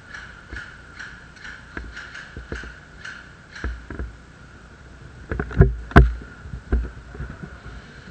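Soft rhythmic thuds about twice a second, like footsteps and gear movement on a body-worn camera, then a cluster of louder sharp knocks between about five and seven seconds in, the loudest about six seconds in.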